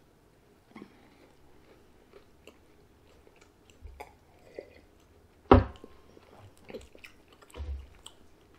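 Close-up chewing of a soft chocolate chip cookie, with small wet mouth clicks throughout. A couple of short louder knocks break in, the loudest about five and a half seconds in.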